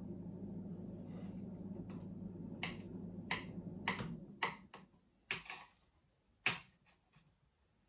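A knife cutting through glazed lemon bars on a plate: a string of sharp clicks and snaps as the blade goes through the hardened glaze and meets the plate, the loudest about six and a half seconds in. A low steady hum underneath stops about four seconds in.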